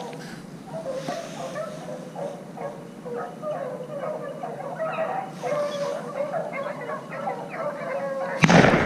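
Pack of beagles baying in a steady stream of short yelps as they run a rabbit. Near the end, a single loud shotgun shot fired at the rabbit.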